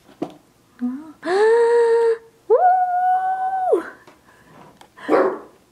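Two long, drawn-out excited cries, each rising in pitch and then held for about a second, the second higher than the first, followed by a short breathy sound near the end.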